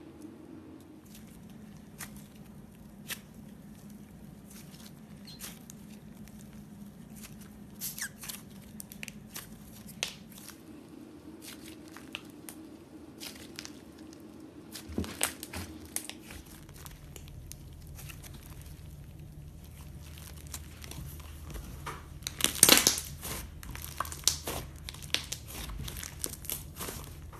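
Slime being squeezed and poked by hand, making scattered sticky clicks and crackling pops, with a dense burst of loud crackles about two-thirds of the way through. A faint steady low hum runs underneath.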